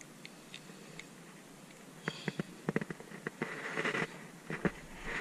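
Hands handling fishing tackle while baiting a hook and picking up the rod: scattered faint clicks and rustles that grow busier and louder from about two seconds in.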